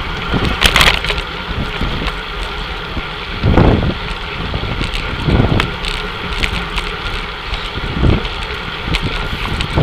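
Wind rushing over the microphone of a camera riding in a pack of road bicycles, with low buffeting gusts every couple of seconds over the steady whir of tyres and drivetrains, and a short sharp crackle about a second in.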